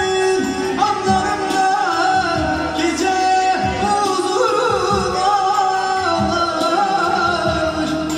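A man sings an ornamented melody with a wavering pitch into a microphone through PA speakers, over an electronic keyboard accompaniment with a steady beat.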